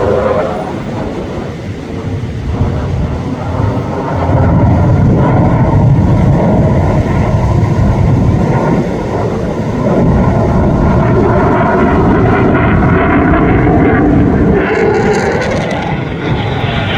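Lockheed Martin F-35's Pratt & Whitney F135 afterburning turbofan roaring as the jet flies its display. The roar swells about four seconds in and stays loud, with tones sweeping down and then up in pitch as the jet passes.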